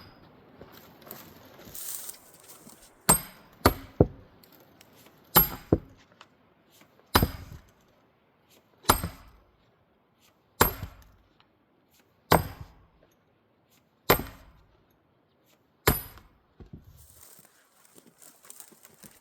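Heavy splitting blows striking an old-growth spruce butt round: about ten sharp impacts, three quick ones a few seconds in, then a steady stroke roughly every second and three quarters, each with a short metallic ring.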